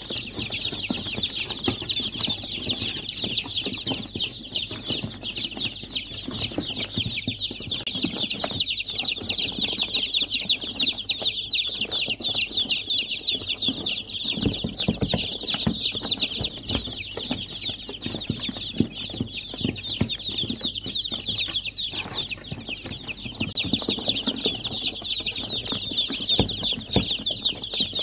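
A large brood of day-old chicks peeping all at once: a dense, unbroken chorus of high cheeps, with soft scuffling and knocks underneath.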